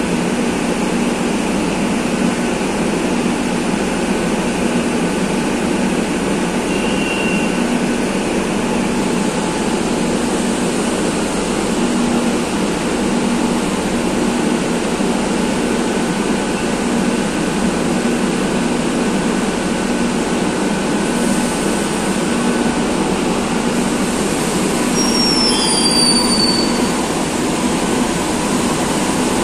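Madrid Metro series 2000 electric train beside the platform, its equipment giving a steady noise with a low hum that pulses evenly. About 25 seconds in, brief high wheel squeals sound as the train gets moving.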